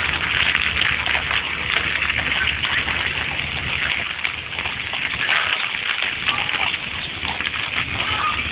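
Steady rain pattering hard close by, with a low rumble underneath that fades out about halfway and comes back near the end.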